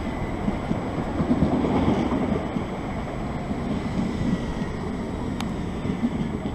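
Southern electric multiple-unit train running along the platform: a steady rumble of wheels on rail and traction motors, loudest a second or two in, with wind buffeting the microphone.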